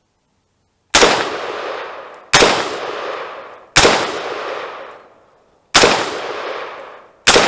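Five single shots from a 20-inch-barrel AR-15 rifle, fired one at a time about a second and a half apart, each followed by a long fading echo.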